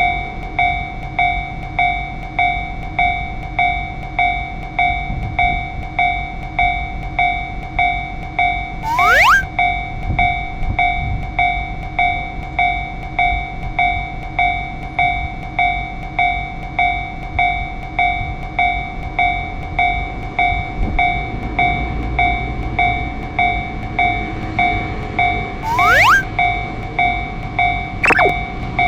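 Japanese level-crossing warning bell ringing steadily, a 'kan-kan' chime struck about every three-quarters of a second, with the low rumble of an approaching train building up under it. Two short rising whistle-like sweeps and a falling one near the end cut across the ringing.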